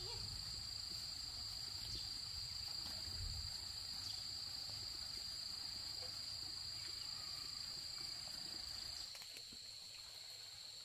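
Insects such as crickets or cicadas trilling, one steady high-pitched note without a break, with a low background rumble that fades about nine seconds in.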